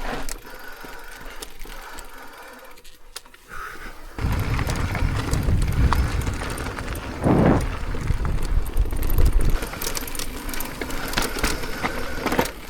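Mountain bike riding over a trail: clicking and rattling of the bike with rolling ride noise, quieter at first and much louder from about four seconds in.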